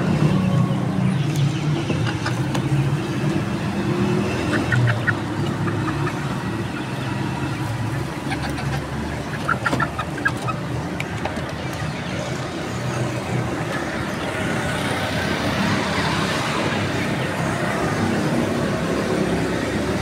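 Golden Misri chickens clucking as they peck at scattered grain, with short runs of quick clucks about five and ten seconds in, over a steady low rumble of road traffic.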